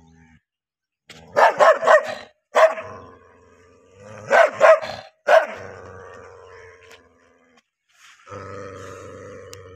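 A large dog barking deeply in short runs of two or three barks, then growling low and steadily near the end: warning barks and growls, teeth bared.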